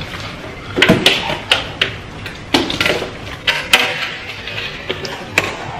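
Hands slapping and squelching wet seasoning into a whole raw pig in a pan: irregular sharp wet slaps and knocks, several close together in the first half.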